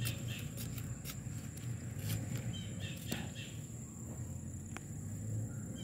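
Garden ambience: a steady high insect trill with faint bird chirps, under a low rumble and a few short clicks and scrapes as soil is dug with a hand trowel and fingers.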